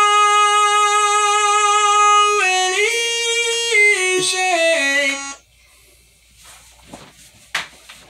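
Korg microKORG synth played through a TalkStar talkbox and shaped by the mouth: one long held note, then several notes stepping down in pitch. It cuts off about five seconds in, followed by a few faint knocks.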